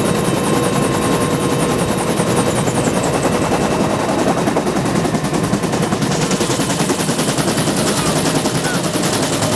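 Helicopter rotor and turbine engine running loud and close, a rapid steady chopping beat. The sound shifts about six seconds in.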